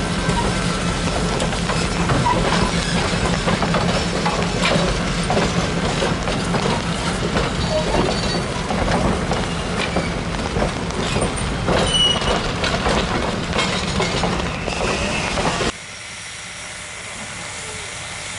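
Heavyweight steel passenger cars rolling slowly past, wheels clicking over rail joints with brief high wheel squeals. The sound stops abruptly near the end and a quieter steady background follows.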